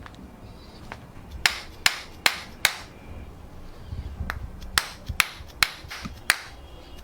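Sharp knocks in two quick, evenly spaced runs: four about a second and a half in, then another run a couple of seconds later.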